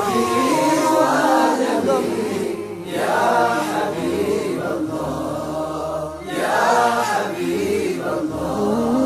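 A group of men singing an Islamic devotional nasheed in praise of the Prophet together, in drawn-out melodic phrases with brief breaks about three and six seconds in.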